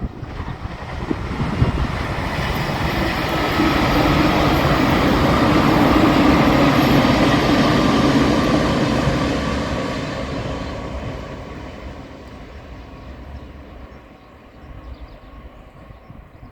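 JR Shikoku 8000 series electric limited-express train passing: the run-by noise swells to a peak about six to eight seconds in, then fades away over the last several seconds.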